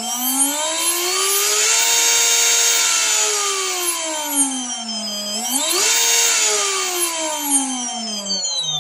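Joysway US-1 RC boat's water-cooled brushless motor spinning its drive out of the water, whining as it is throttled up, held, eased down, throttled up and held again, then spinning down near the end. The owner hears a slight knocking ('picado') in its sound.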